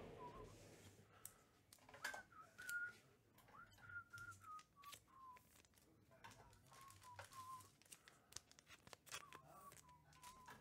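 A person faintly whistling a slow tune, holding notes and stepping down between a higher and a lower pitch, over light clicks and rustles of trading-card packs being handled.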